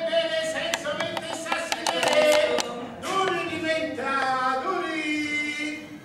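Several voices singing together on stage, with long held notes that slide in pitch, and scattered sharp clicks and knocks throughout.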